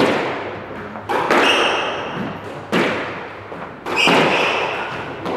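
Squash ball being struck during a rally: four sharp hits roughly a second apart, each echoing around the enclosed court.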